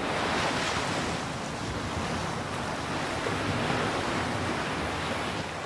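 Ocean surf breaking and washing up a sand beach as a steady rush, with wind buffeting the microphone in low rumbles.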